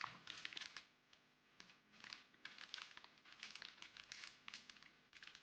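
Parcel packaging crinkling and rustling as it is handled and opened: faint, irregular crackles.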